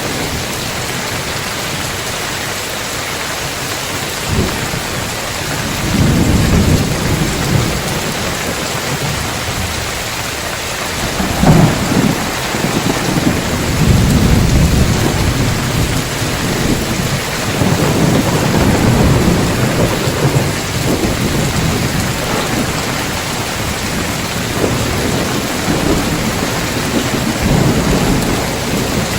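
Heavy rain pouring steadily on roof tiles while thunder rolls. A sharp thunderclap about a third of the way in is followed by a long rumble, and lower rumbles come and go before and after.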